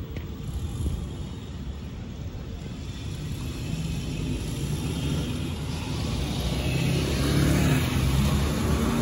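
Jet engines of a departing airliner climbing overhead: a low, steady rumble with a rising hiss that grows steadily louder.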